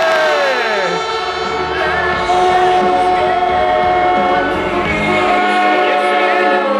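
A large stadium crowd cheering and blowing horns. Long held horn notes sound over the crowd noise, and a few of them slide down in pitch about a second in.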